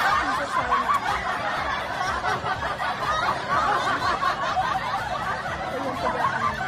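Several people laughing together.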